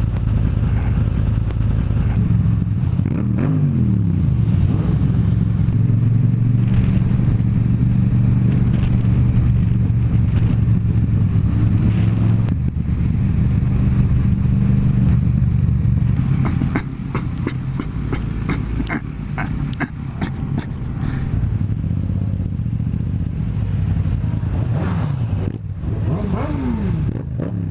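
Motorcycle engine running steadily while riding. Twice, a pitch falls sharply, once a few seconds in and once near the end. About halfway the engine eases off and a scatter of clicks and knocks follows.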